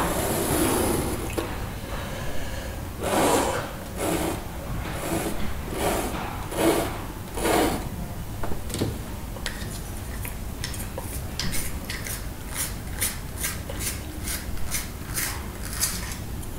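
Graphite pencil scratching across a primed drawing board in a row of separate long strokes, then a quicker, regular run of short scratches as the pencil is turned in a small handheld sharpener near the end.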